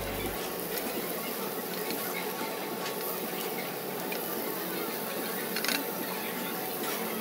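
Pork sizzling on a Korean tabletop barbecue grill plate: a steady crackling hiss, with a sharp metal click about five and a half seconds in as the meat is cut and handled.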